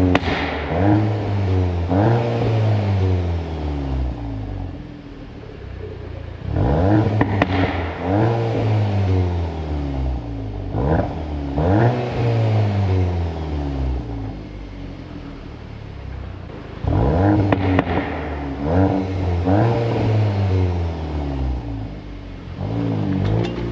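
Volkswagen Golf 8 R's turbocharged 2.0-litre four-cylinder running through its factory Akrapovič exhaust, pulling hard through the gears. The pitch climbs steeply and drops at each upshift, with quieter spells of light cruising between the pulls and a few sharp cracks.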